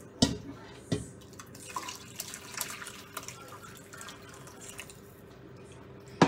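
A metal utensil clinks sharply against a metal pot a few times, and broth splashes and drips as it is scooped out of the pot, about two seconds in.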